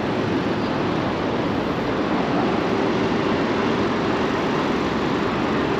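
Road traffic at a multi-lane intersection: a steady wash of car engines and tyres, with a low engine hum coming in about two seconds in.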